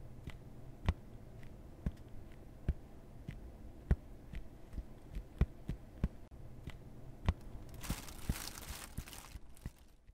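Footsteps on a dry dirt path, a steady walking pace of sharp thumps, with a brief hiss toward the end.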